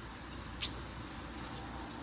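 A single short, high-pitched squeak about half a second in, over a steady background hiss.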